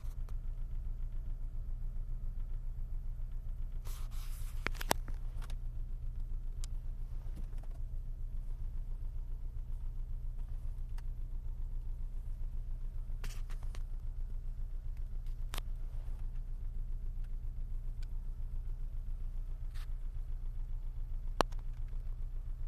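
Car engine idling, heard from inside the car as a steady low, rhythmic throb: the unexplained knock and vibration at idle that the owner says is pounding noticeably. A couple of sharp clicks and brief rustles sit over it.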